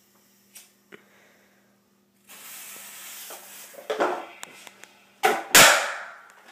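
M1000 firecracker: its fuse hisses for about three seconds, then it goes off with two sharp bangs close together near the end, the second the louder.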